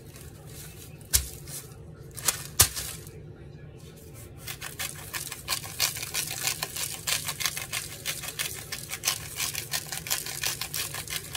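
A few separate sharp knocks in the first three seconds, then from about four and a half seconds a hand-twisted sea salt grinder being turned, a fast, continuous run of small clicks as the salt is ground over the meat.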